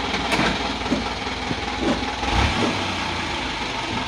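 Isuzu dump truck's diesel engine running steadily at low revs, with a few short knocks and one heavier low thump.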